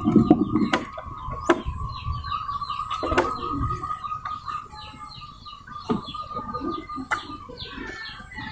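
Zebra dove (perkutut) giving low coos near the start, amid rapid chirping of small birds over a steady high tone, with a few sharp clicks.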